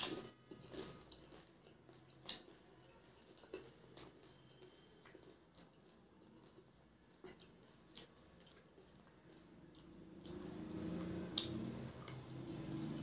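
A crisp, pani-filled puri shell crunched in one loud bite, then wet chewing with scattered crunches. About ten seconds in a low steady hum comes in and carries on.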